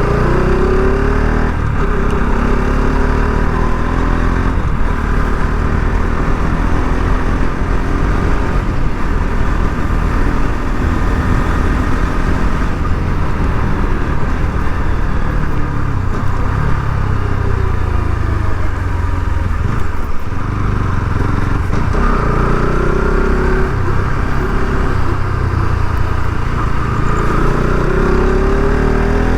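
Bajaj Pulsar RS 200's single-cylinder engine running under way, its revs sliding down and up as the bike eases off and accelerates, climbing steadily near the end, over a heavy low rumble.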